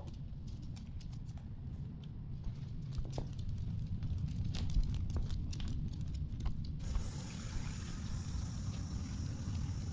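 Steady low rumble of wind and rubbing on a tiny action camera on the move, with scattered light clicks and ticks; a steady high hiss joins about seven seconds in.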